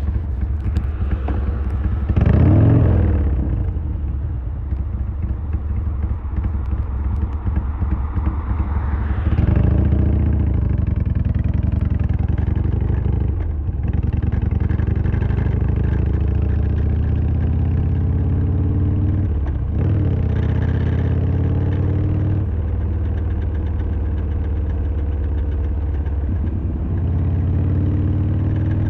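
Harley-Davidson Sportster XL1200R's air-cooled 1200 cc V-twin running under way. It accelerates and shifts up through the gears several times: the engine note drops at each shift and then rises again.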